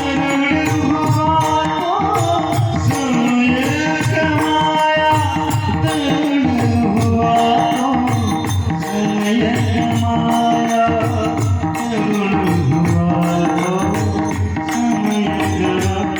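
Indian devotional folk song music: a wavering melodic line over sustained tones and a steady hand-drum beat.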